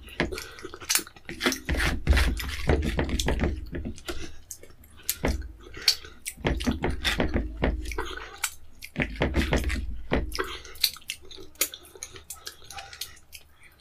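Fingers wiping egusi soup off a plate and being licked and sucked clean: a run of sharp wet smacks and clicks, with dull thumps against the plate every few seconds.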